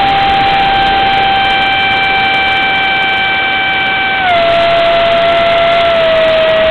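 Electric motor of an RC foam F-18 jet on a 4S battery, heard on board in flight: a steady high whine over a rush of air. The whine drops a step in pitch about four seconds in and a little more near the end.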